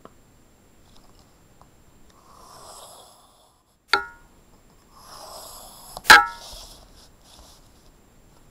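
Clear plastic ruler and pencil handled on paper: two rustling slides across the sheet, each followed by a sharp clack with a short ring, the second clack the louder.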